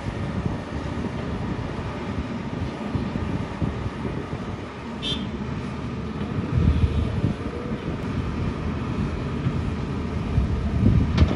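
Diesel engine of a Volvo EC290B LC excavator working under load as it dumps soil and swings, a steady low rumble that swells twice, about seven seconds in and again near the end. A sharp knock comes near the end.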